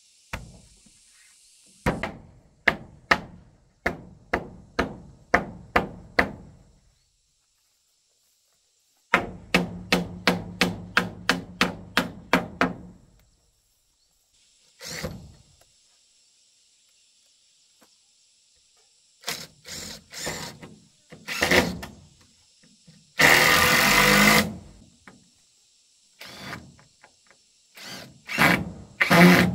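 Repeated wooden blows as planks are knocked down into place with a block of wood, in two runs of steady strikes, the second faster. Near the end a cordless drill runs briefly, driving screws into the planks.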